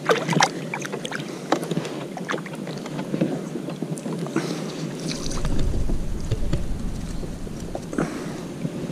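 Small knocks and clicks of fishing gear being handled against a plastic kayak, with a low rumble on the microphone from about five seconds in that fades out a couple of seconds later.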